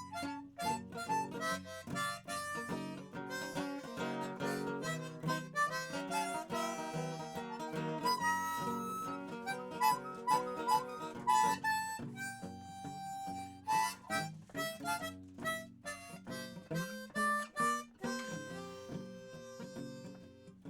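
Instrumental break in a live acoustic song: a melody of held notes played over plucked strings.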